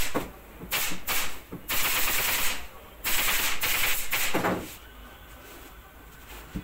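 Pneumatic upholstery staple gun firing staples into a headboard panel's covering: a few single sharp shots, then two rapid runs of about a second each, stopping shortly after halfway.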